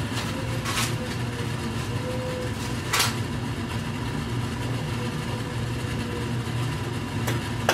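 Dehumidifier running with a steady low hum and a faint wavering whine over it. A few short, sharp knocks sound over the hum, the loudest about three seconds in.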